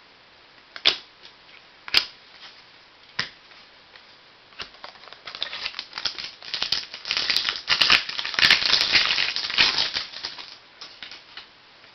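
Trading-card packaging and cards being handled: a few sharp clicks, then a dense crinkling and crackling from about five to ten seconds in.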